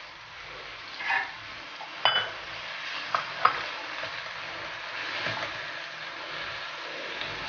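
Tomato wedges, dried red chillies and garlic cloves sizzling in butter and oil in a kadhai while being stirred with a silicone spatula. A few sharp knocks of the spatula against the pan come in the first few seconds.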